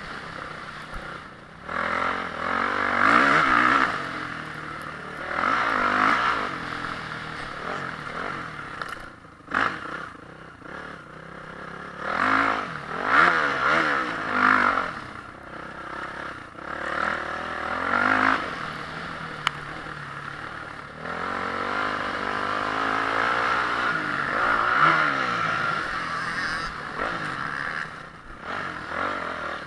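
Honda CRF450R motocross bike's single-cylinder four-stroke engine revving hard and backing off again and again, its pitch rising and falling with each surge, with some clatter.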